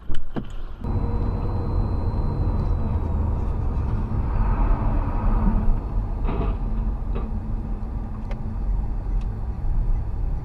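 Steady engine and road noise inside a moving car, recorded by a dashcam, mostly low rumble, with a few faint clicks. A brief sharp knock comes right at the start, before the noise settles in.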